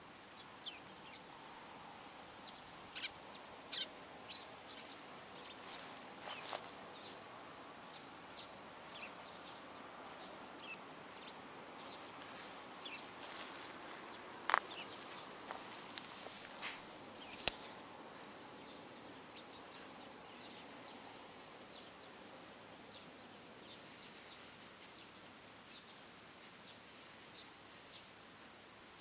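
Faint steady open-air background noise with scattered short ticks and crackles throughout, and two sharper clicks around the middle.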